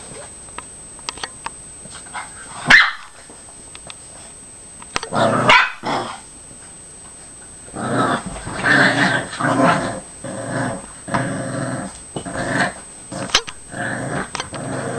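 Two dogs play-fighting. Two sharp barks come in the first half, then a steady string of short growls runs from about halfway on.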